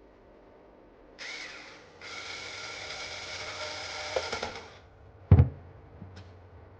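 Power screwdriver driving hard-drive mounting screws: a brief whirr, then about three seconds of steady motor whine with a few clicks near the end as the screw seats. A loud single knock follows about five seconds in.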